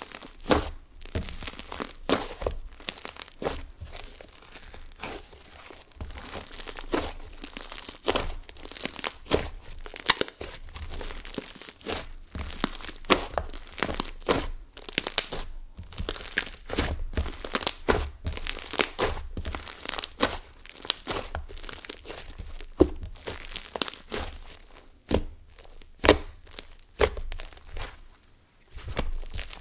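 Inflated, whipped mochi-texture slime squeezed and pressed between the hands, its trapped air bubbles popping in a steady stream of small crackles and sizzles.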